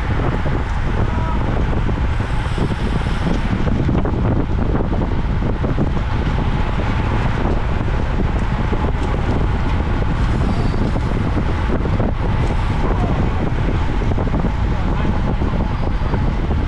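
Wind buffeting the microphone of an onboard camera on a racing bicycle at speed: a steady low rumble.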